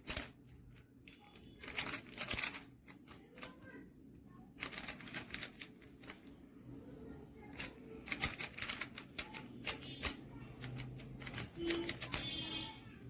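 Plastic 3x3 Rubik's cube layers being turned by hand: quick clattering clicks in several bursts separated by short pauses.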